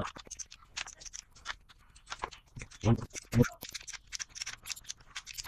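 Metal spanner clicking and scraping on a small, tight bolt as it is worked round in short turns by hand. Two brief low voice sounds come about three seconds in.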